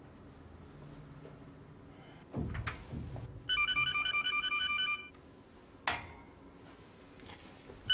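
Electronic office telephone ringing with a fast warbling trill: one ring of about a second and a half a little before halfway through, and the next ring starting right at the end. A low thud comes shortly before the first ring, and a sharp knock follows it.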